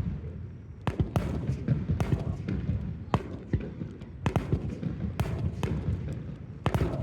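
Fireworks bursting overhead: about a dozen sharp bangs and cracks at irregular intervals, over a steady low rumble.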